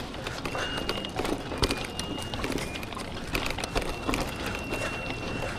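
Mountain bike rolling over bumpy dirt, its parts rattling and knocking irregularly over the ground, with a thin high tone sounding on and off.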